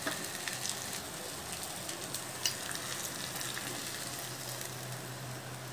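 Masala-coated prawns sizzling in hot oil in a frying pan: a steady soft sizzle with a few scattered crackles, over a steady low hum.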